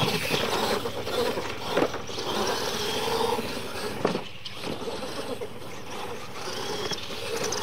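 Radio-controlled monster trucks racing on dirt: motors whining and wavering in pitch as the throttle changes, over a hiss of tyres on loose dirt. Two sharp knocks come about 2 and 4 seconds in.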